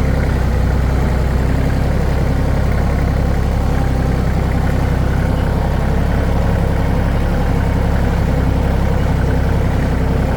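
Tractor engine running steadily, an even drone with no change in speed.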